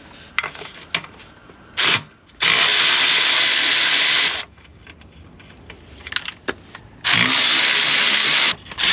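A power tool run in two long bursts, of about two seconds and a second and a half, with short blips before and after, backing out the two oil pan bolts hidden up inside the transmission. A few light metallic clicks come between the runs.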